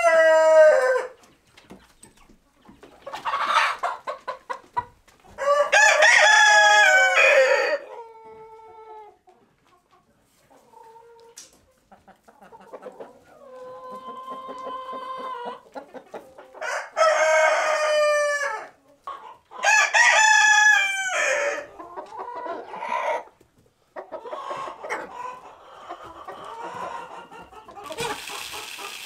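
Roosters crowing about four times, each crow lasting around two seconds, with hens clucking between the crows. Near the end comes a steady hiss of chicken feed being poured from a metal scoop into a plastic feeder.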